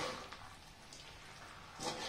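Metal spoon stirring chicken pieces in masala in an aluminium pot, with a faint wet crackle from the pan. There is a light click early on and a short scrape of the spoon against the pot near the end.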